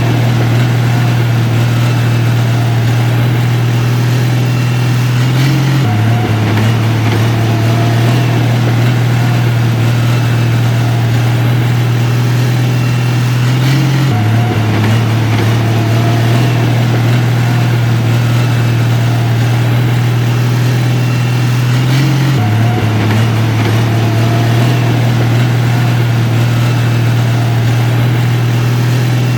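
Heavy construction machine's diesel engine running steadily with a loud low hum. The hum shifts slightly in pitch about every eight seconds, at evenly spaced moments.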